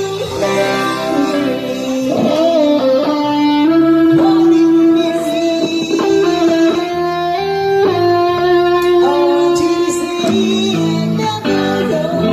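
Live rock band playing through small amps: an electric guitar carries a melody of long held notes with some pitch bends, over bass and drums.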